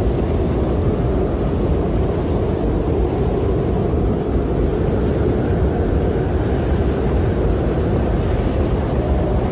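Snowstorm wind blowing steadily, a deep, even rush that swells a little in a gust about halfway through.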